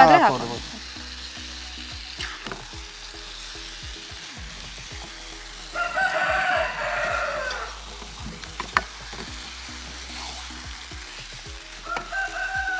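Chicken frying in masala in a pan, a steady sizzle with the scrape and click of a spoon stirring it. About halfway through, a rooster crows once for about two seconds, and a shorter rooster call comes near the end.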